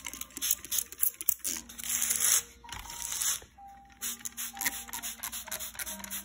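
Hissing squirts of a plastic trigger spray bottle misting water onto sand, irregular and loudest about a second and a half to two and a half seconds in, over background music.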